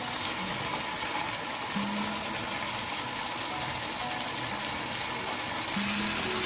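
Chicken and pork pieces sizzling steadily in a pot of hot oil and their own rendered juices as they brown.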